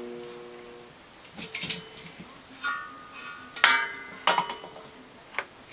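A faint hum dies away in the first second, then a handful of sharp clinks and knocks of hard objects being handled and set down, several ringing briefly.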